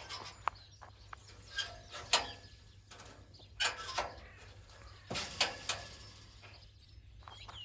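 A series of sharp knocks and rustles, the loudest a little over two seconds in, with a few faint bird chirps near the end.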